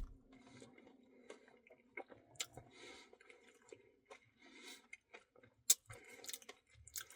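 Close-miked mouth sounds of eating a Reese's Pieces cookie dough Blizzard: faint, soft, wet chewing with scattered sharp clicks and small crunches.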